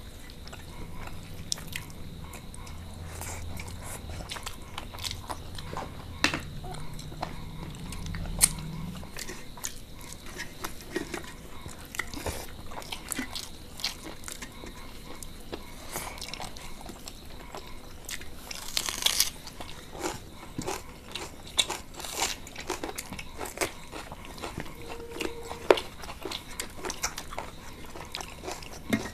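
Close-miked eating of chicken curry with rice by hand: chewing, wet mouth clicks and lip smacks, with fingers squelching rice and curry on metal plates. A low hum runs through the first third, and there is one longer hissing noise about two-thirds of the way in.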